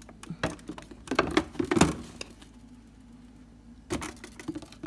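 Condiment bottles knocking and clicking as they are handled on a fridge shelf: a run of small knocks, a short pause, then more knocks near the end.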